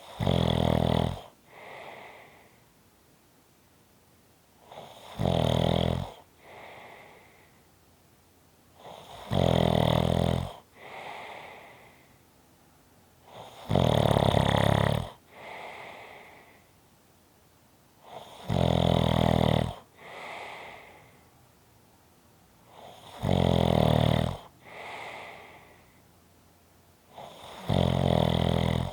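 A sleeping person snoring in a slow, even rhythm: seven loud, low buzzing snores about four and a half seconds apart, each followed by a softer, breathy breath.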